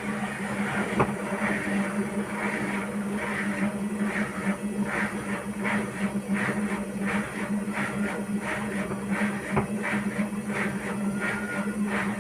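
Hotpoint-Ariston washing machine running, with a steady motor hum and a rhythmic swish from the turning drum about twice a second. A sharp knock comes about a second in and another near the end; the machine is reported to knock heavily on spin.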